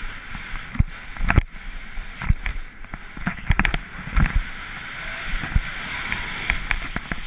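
Skis hissing and scraping over snow, with irregular knocks and thumps on a skier-worn point-of-view camera.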